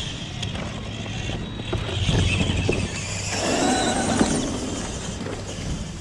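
Electric radio-controlled truck driving over dirt and sand: motor and drivetrain running, with scattered small clicks from the tyres and chassis.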